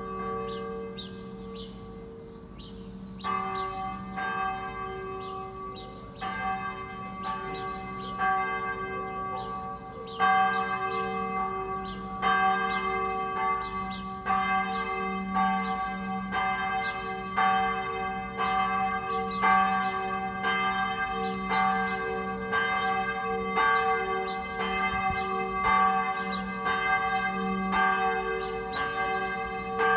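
Church bells pealing: several bells at different pitches struck over and over, their tones ringing on and overlapping. The higher bells fall away for a couple of seconds near the start, then come back in.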